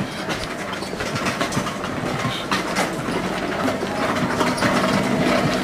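Street noise while walking: scattered footstep clicks over a steady mechanical hum that grows louder and more tonal in the second half.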